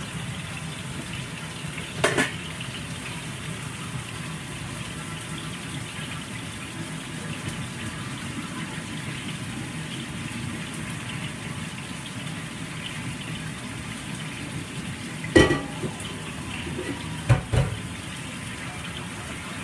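Food frying in a hot oiled pan, a steady sizzle, with four sharp knocks of cookware: one about two seconds in and three near the end.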